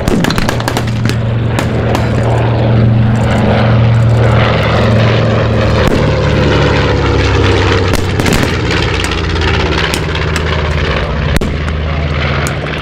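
Propeller aircraft's piston engines running loud and steady, with a slow fall in pitch about halfway through and many sharp crackles throughout.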